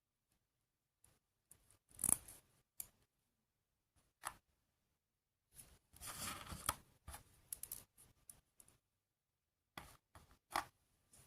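Small plastic toy parts and packaging being handled during assembly: scattered clicks and taps, with a longer crisp rustle about six seconds in.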